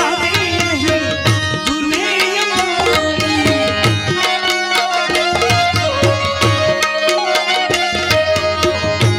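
Live devotional bhajan music: a harmonium playing held notes and melody with tabla keeping a steady rhythm, and a man singing long, sliding notes over it.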